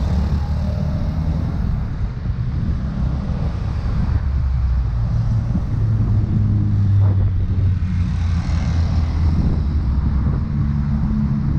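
Street traffic heard from a moving bicycle: a motorcycle and cars running close by, with a steady low rumble and an engine hum that swells in the middle.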